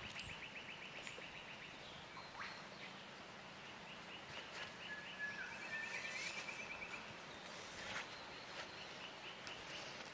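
Forest ambience: a high, rapid pulsing trill from wildlife repeats in runs of a few seconds, with a short whistled call about halfway through. A few light rustles and clicks come from the tarp and pole being handled.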